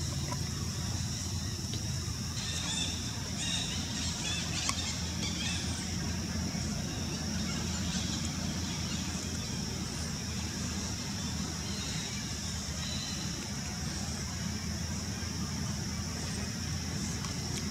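Steady outdoor background noise: a low rumble under a constant high-pitched drone, with a few faint chirps between about two and five seconds in.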